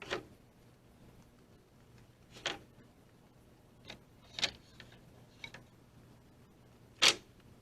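Lumber boards knocking against each other as they are handled and stacked: about six sharp wooden knocks at uneven intervals, the loudest at the start and near the end.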